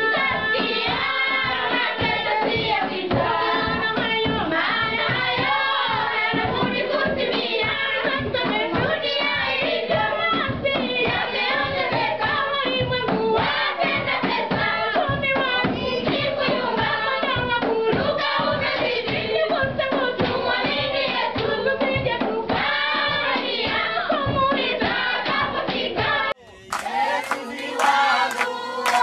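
A group of young voices singing together in a church choir, with hand claps keeping a steady beat. A couple of seconds before the end the sound drops out briefly and cuts to a different, brighter recording.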